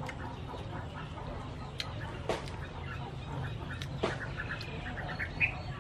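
Chickens clucking, with a run of short calls near the end. A few sharp clicks come through over a steady low hum.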